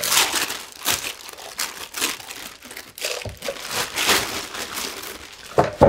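Crinkling and rustling of a thin waxy self-sealing packaging bag as it is opened and handled, with a few sharper crackles along the way.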